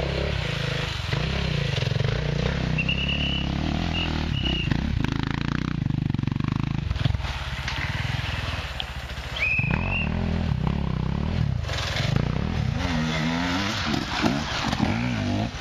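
Enduro dirt bike engines revving hard and unevenly as riders climb a forest trail, the pitch rising and falling with the throttle. Near the end one bike passes close, its revs sweeping up and down quickly.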